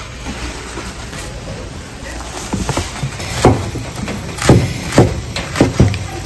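Chef's knife chopping leafy greens on a thick wooden cutting board: a series of heavy, irregular chops, each a sharp crunch with a thud from the board, starting about two and a half seconds in.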